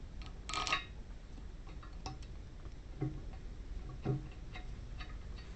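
Steel lock washers and flat washers clinking as they are slipped onto bolts: one ringing metallic clink about half a second in, then a few fainter ticks and taps about once a second.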